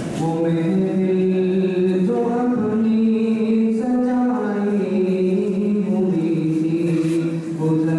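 A man's solo voice chanting an Islamic nazam (devotional poem) unaccompanied, in long held notes that slide from pitch to pitch, with a brief breath break near the end.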